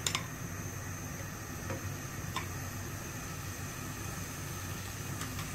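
A few faint, light clicks of a metal spoon against a non-stick pan as solid ghee is spooned in, over a steady low hiss.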